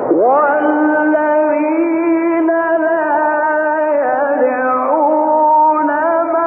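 A male Quran reciter's voice in melodic Egyptian-style recitation. It swoops up into one long held phrase with ornamented pitch turns.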